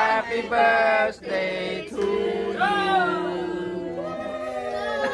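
A group of family voices singing a birthday song together in several long held phrases, ending near the end as it gives way to chatter and laughter.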